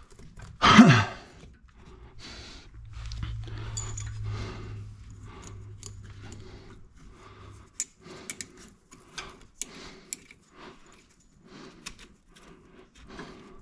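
Hand tools and metal hose-clamp hardware clinking and rattling as they are handled, in many small scattered clicks, with a short grunt-like sound about a second in and a low hum for a few seconds.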